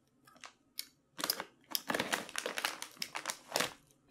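Plastic packaging crinkling and crackling as it is handled, a dense run of small crackles from about a second in until near the end.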